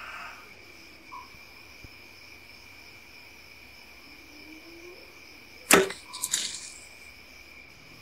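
A bow shot at a bush pig: one sharp, loud crack of the release and arrow strike about six seconds in, followed at once by a short spell of crackling as the hit animal crashes off through the brush. Steady night insect chirring runs underneath.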